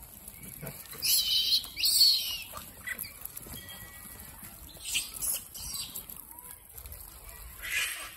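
Rhesus macaques screeching in short, shrill bursts. Two loud ones come about a second in, with weaker ones near the middle and near the end.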